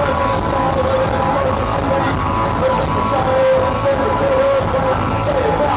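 Psychobilly rock band playing live: electric guitars over drums with regular cymbal strokes, loud and unbroken.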